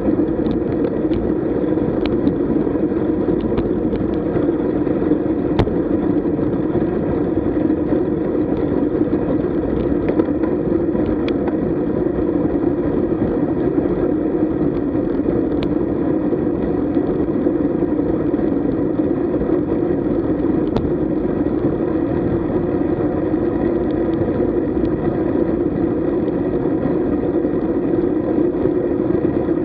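Steady wind and road noise from riding a road bike at speed, heard through the camera's microphone: a constant muffled rumble with a few faint clicks.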